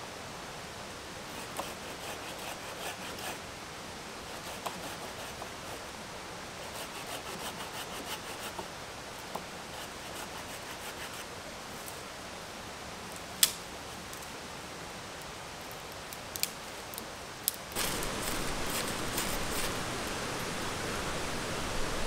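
Dry dead branches and twigs being rustled and snapped off by hand, with crackling spells and several sharp snaps, the loudest about halfway through. A waterfall's steady rush runs underneath and gets louder near the end.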